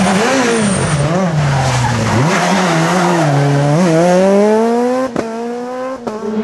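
Peugeot 207 S2000 rally car's naturally aspirated four-cylinder engine at full effort through a corner. The pitch dips and wavers on lifts and gear changes, then climbs steadily as the car accelerates away. The sound breaks off abruptly twice near the end.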